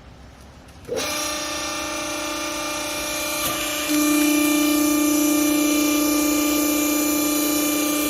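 Textile baling press's hydraulic motor and pump starting abruptly about a second in and running with a steady whine, stepping louder about three seconds later as it comes under load.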